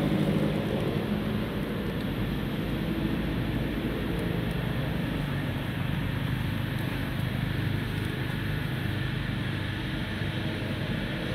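Steady low background rumble with a faint, slowly wandering hum.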